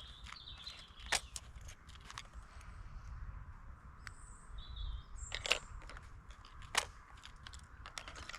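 Outdoor ambience: short, high bird chirps over a low wind rumble, with scattered sharp clicks and knocks, a few of them louder.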